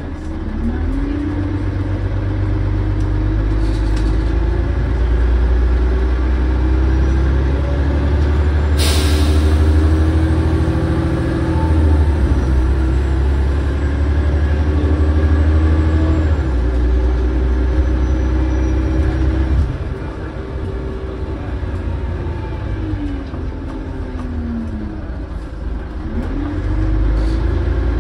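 Volvo Olympian double-decker bus's diesel engine heard from the upper deck, pulling and climbing in pitch through several gear changes, with a short sharp hiss of air about nine seconds in. About twenty seconds in the engine eases off and its pitch falls, then it picks up again near the end.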